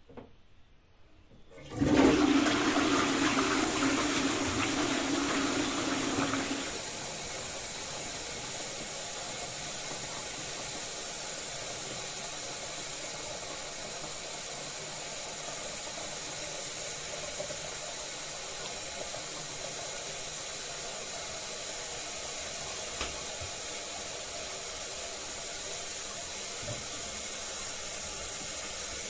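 Toilet flushing: after a faint click, a sudden loud rush of water into the bowl lasting about five seconds, which then settles into a steady hiss of the cistern refilling.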